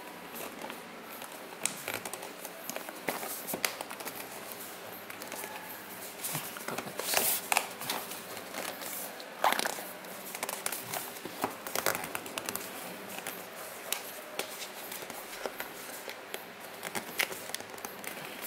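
Paper sleeve and cardboard box being handled and pulled at: card and paper rubbing, scraping and rustling with scattered sharp ticks, the loudest scrapes about seven and nine and a half seconds in. The sleeve is tight and hard to slide off.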